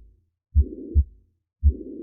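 Heart sounds through a stethoscope, about one beat a second, each beat a pair of dull lub-dub thumps. A steady, rough murmur fills the whole gap between the first and second sound of each beat: a holosystolic murmur.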